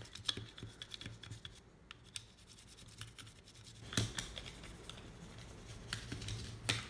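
Cleaning brush scrubbing inside a Glock 22's polymer lower frame: faint, quick scratchy scrapes and ticks, with a sharper click about four seconds in and another near the end.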